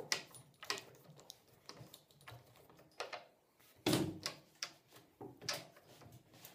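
Scattered clicks and knocks of a tool and metal parts as a longboard truck is tightened back together. The loudest knock comes about four seconds in.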